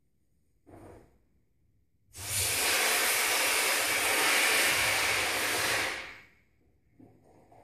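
Air hissing out of a party balloon through its neck held between the fingers as the balloon deflates: a steady hiss lasting about four seconds that fades out as the balloon empties.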